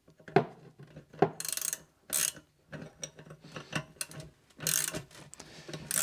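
Open-end steel wrenches clicking and rattling against the nut and shaft of a mower drive roller's bevel-gear differential as the screw is worked tight: sharp separate clicks, a quick run of ticks about one and a half seconds in, then scattered clinks.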